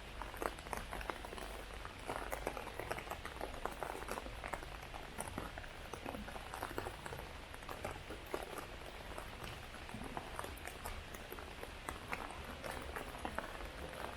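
Heavy rain pattering: a dense, irregular run of separate drops ticking on a surface close by, over a steady hiss.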